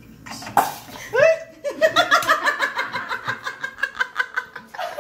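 Hearty laughter: a long run of quick ha-ha pulses starting about a second in, after a short sharp noise.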